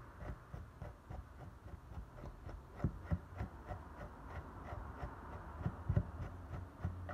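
A long-toothed dematting comb drawn repeatedly through the synthetic-hair wig on a model dog head, making short strokes about three a second, with a few low knocks about three and six seconds in.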